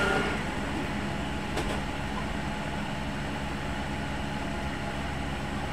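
Steady low background hum with one faint click about a second and a half in.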